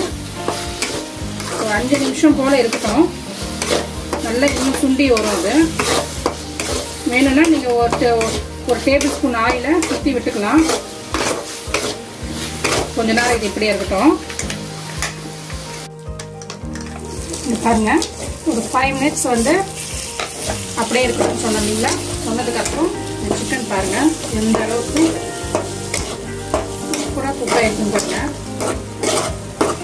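Metal spoon stirring and scraping chicken pieces around an aluminium kadai while the oil and masala sizzle, with a brief break about halfway through. The chicken is dry-frying in oil with crushed black pepper in its final stage.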